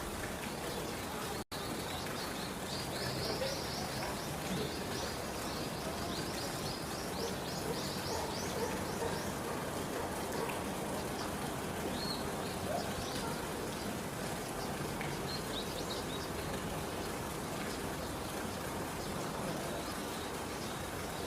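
Small birds chirping in quick runs of short high notes, thinning out to a few scattered chirps, over a steady background hiss of outdoor ambience. The sound cuts out briefly about a second and a half in.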